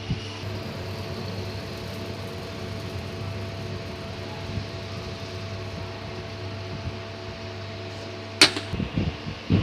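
CNC lathe running with a steady hum made of several even tones. A single sharp knock comes near the end, followed by a few duller knocks.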